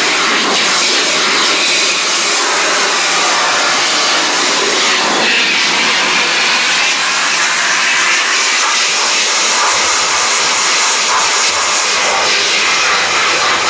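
Steady spray of water hitting a screen-printing screen, washing off emulsion loosened by emulsion remover.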